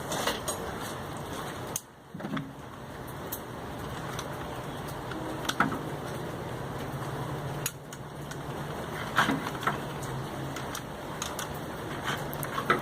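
Scattered sharp metallic clicks and clinks from handling pop rivets and a rivet tool on a steel wheelbarrow, over a steady low hum.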